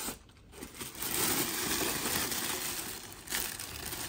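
Packaging rustling and crinkling as it is handled and pulled open, a steady scratchy rustle for a couple of seconds with a short break near the end.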